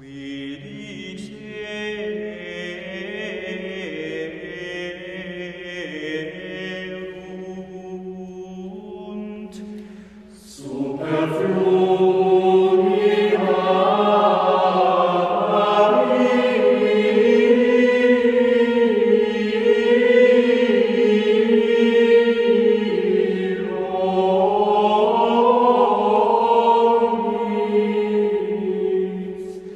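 Choral chant as background music: voices singing long held notes that move in steps, quieter at first, then fuller and louder from about ten seconds in.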